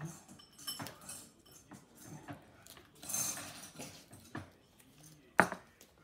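Crafting with white adhesive tape and paper on a wooden table: light rustling, crackling and taps as strips are peeled and pressed down, with a brief hiss about three seconds in. One sharp knock near the end is the loudest sound.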